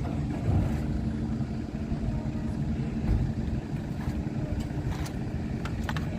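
A vehicle's engine running steadily: a continuous low rumble with a held, even hum.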